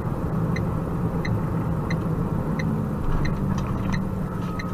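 Steady car engine and road rumble heard from inside the cabin, with a turn-signal indicator ticking evenly, about one and a half ticks a second.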